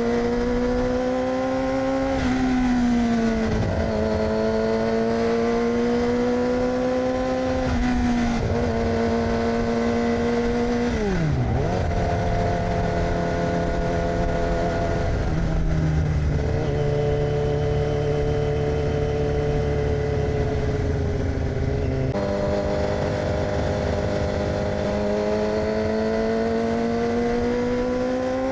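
2006 Yamaha R6 inline-four sport bike through an aftermarket AR exhaust, under way on the road. The engine note climbs and drops sharply twice early on as it shifts up, sweeps down about 11 seconds in as the bike slows, holds a lower steady pitch, then climbs again near the end as it accelerates.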